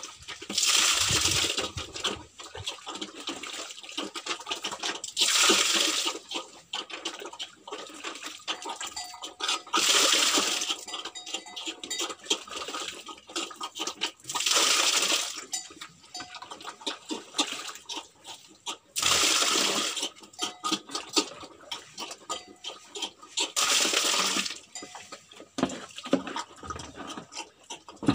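A pig eating wet swill from a wooden trough: rapid wet smacking and chewing, broken about every four to five seconds by a louder slurping rush lasting about a second.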